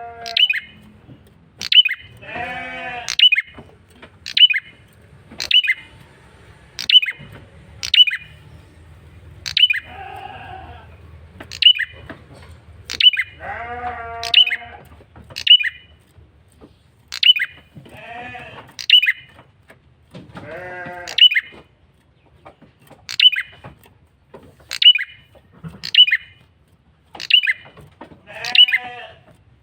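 Male prenjak kepala merah (a prinia) calling persistently. Sharp high chips that drop in pitch repeat about once a second. About six times a harsher, nasal call rises and falls in pitch.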